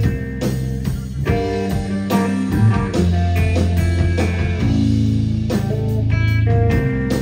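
Live rock band playing: distorted electric guitars and long, low held bass notes over drums and cymbals, with no singing.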